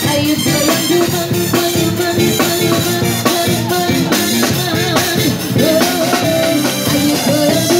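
Live band music: a woman sings into a microphone through a PA, holding long notes that climb higher about five and a half seconds in, backed by a drum kit and guitars.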